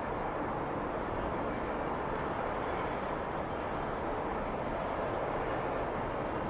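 Steady distant vehicle and engine noise, an even rumble with a faint low hum and no single event standing out.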